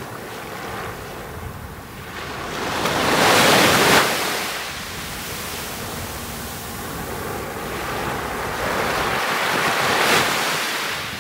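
Small waves breaking and washing up on a sandy beach: two swells of surf, the first loudest about three and a half seconds in and the second near the end.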